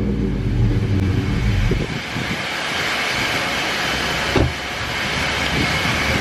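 Dodge Charger R/T's HEMI V8 running with a low, pitched rumble for about two seconds, which then falls away under a steady broad hiss.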